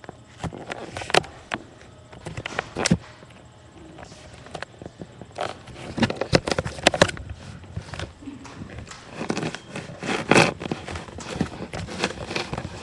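Irregular footsteps with knocks and thumps, uneven and sometimes loud, scattered through the stretch.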